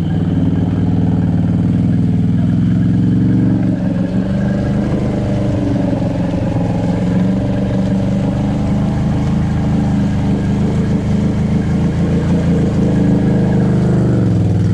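Can-Am Outlander 850 XMR ATV's V-twin engine running under load as it crawls through deep mud, its note mostly steady, sagging slightly about four seconds in and again near the end.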